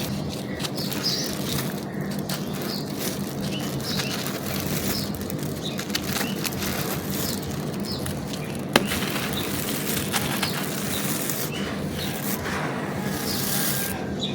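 Dry, brittle material crushed and crumbled, a continuous crunching and crackling made of many small cracks, with one sharper snap about nine seconds in.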